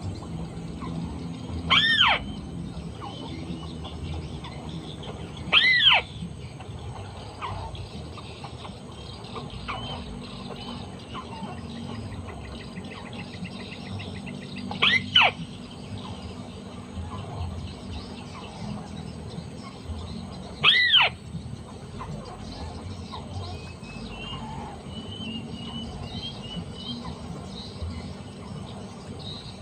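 Short, squealing arched calls of a white-browed crake, each rising and falling, repeated four times at uneven intervals (some in quick pairs), with fainter bird chirps between them.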